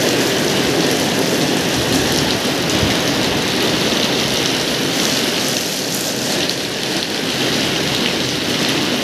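Heavy typhoon rain pouring steadily onto pavement and the street, with strong wind blowing through it.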